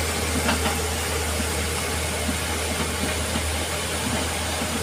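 Diesel engine of a piece of heavy equipment running steadily at idle, heard from inside its cab, with a steady rushing hiss of floodwater behind it.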